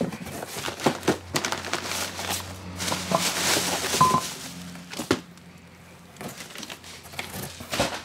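Crumpled newspaper packing and a plastic shopping bag rustling and crinkling as a cardboard box is unpacked by hand, with scattered clicks and knocks. It is busiest in the first half and quieter with a few clicks after the middle.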